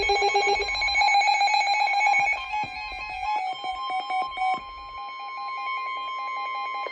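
Emergency Alert System broadcast alert tones: a fast run of repeating, stepping electronic beeps, settling into a steady tone for the last couple of seconds before the spoken warning begins.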